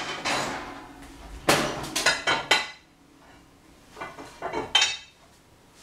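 Metal kitchenware clattering and clinking: a series of sharp knocks, some ringing briefly, in two clusters, about a second and a half in and again near the end.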